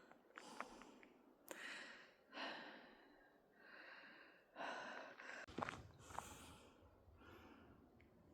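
Faint, irregular footsteps of a hiker on a dry, dusty dirt trail, mixed with soft breathing, about one step-sound a second with small scuffing clicks.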